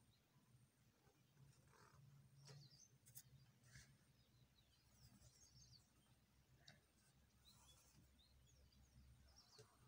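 Near silence: faint low room hum with a few faint, scattered bird chirps.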